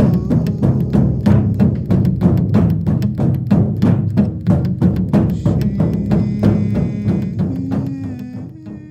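Shamanic frame drum beaten in a fast, steady beat over a low held tone, fading out near the end.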